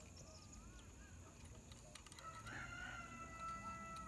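A rooster crowing once, faint, a long held call that starts about two seconds in. A few short bird chirps come before it.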